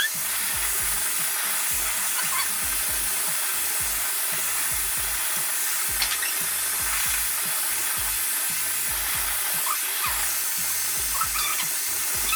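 Hair dryer blowing steadily, a continuous airy hiss.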